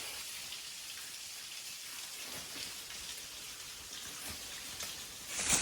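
Water dripping from thawing ice, a steady light patter like rain.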